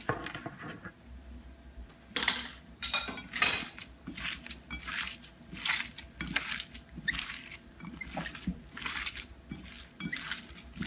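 A hand in a plastic glove kneading raw minced meat with chopped onion in an enamel bowl: irregular wet squishing strokes, starting about two seconds in.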